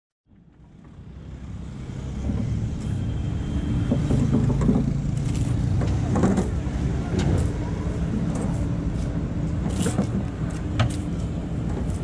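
JCB 3DX backhoe loader's diesel engine running steadily under load as the backhoe digs and swings. It fades in over the first couple of seconds. There are a few sharp clanks from the bucket and arm, and a noisy clatter a little past halfway as a bucketful of soil is dumped into the steel truck bed.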